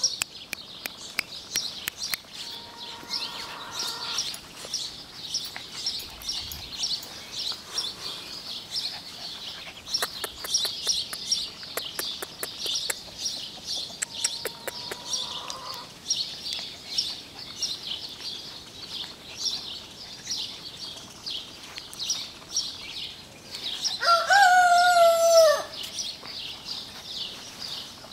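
Birds chirping steadily in a dense high chorus, with a few short calls and one loud drawn-out call, slightly falling in pitch and lasting about a second and a half, near the end.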